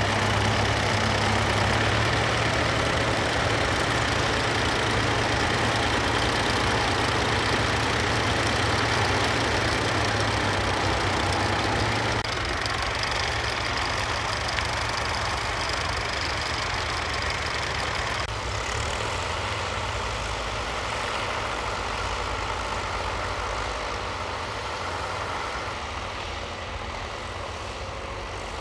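Diesel tractor engines running steadily under load while working the soil: first a County 1884 four-wheel-drive tractor pulling a reversible plough close by. About twelve seconds in, the sound changes to tractors working farther off, and from about eighteen seconds a Ford tractor pulling a cultivator, a little quieter.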